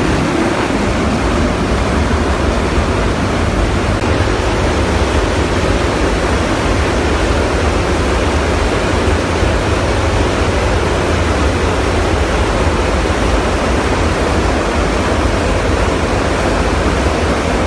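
Steady, loud rush of wind and engine noise inside a transport aircraft's cargo hold in flight, with the rear ramp open to the air.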